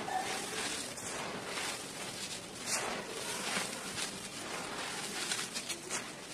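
Dry red dirt crumbling and pouring through the hands onto a loose soil pile: a gritty, sandy hiss with irregular crunches as clumps break apart, the loudest a little under three seconds in.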